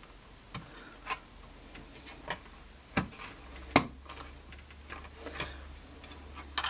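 Irregular light clicks, taps and rubbing from hands working a small circuit board and a strip of tape backing on an aluminium panel, with one sharper click about four seconds in.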